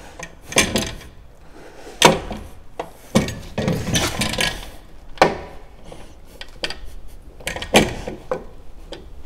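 Matador Bull-Lock steel trailer-hitch lock being worked onto the tow ball by hand: a series of irregular metal knocks and clicks as the lock body and its mechanism are handled and seated.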